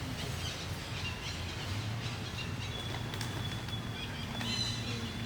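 Outdoor ambience: a steady low hum with scattered short, high chirps, one of them held briefly near the end.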